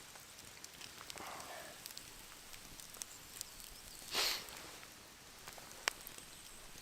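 Fire crackling with scattered sharp pops over a faint steady hiss, with a short louder hiss about four seconds in.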